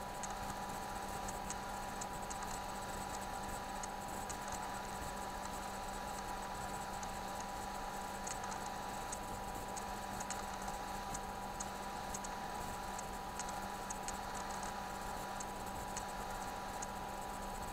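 Steady recording hiss with a constant low hum and a thin whine, dotted with faint scattered ticks. There is no distinct event, only the noise floor of the recording chain.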